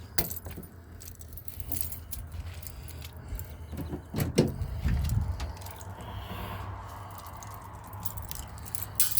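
Keys jangling and clinking as they are handled, with a couple of dull low thumps about four to five seconds in.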